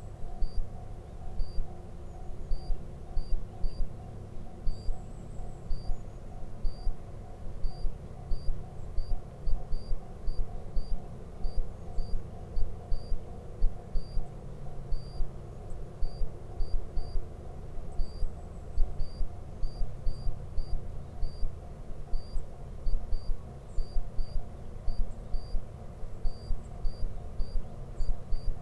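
Short high chirps repeating a few times a second, with fainter high trills now and then, over a low rumble broken by irregular low thumps.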